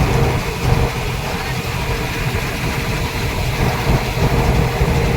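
Combine harvester's engine and machinery running steadily at an even pitch.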